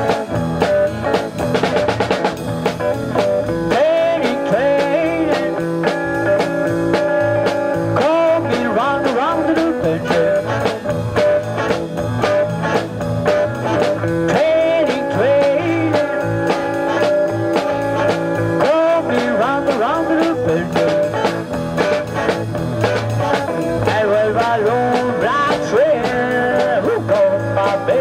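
Live blues band playing without a break: harmonica wailing a bending lead line over electric guitar, bass guitar and drum kit.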